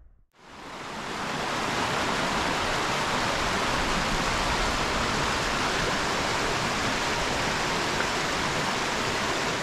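Rocky mountain stream rushing over stones and small rapids: a steady rush of water that fades in just after the start.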